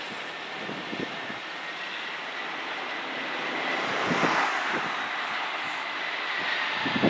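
Jet airliner engines running with a steady rushing noise and a thin high whine, swelling about four seconds in as the plane comes closer. Short low thumps of wind buffet the microphone now and then.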